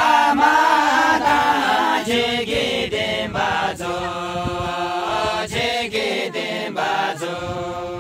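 A group of voices singing a slow, chant-like song together, in phrases with long held notes.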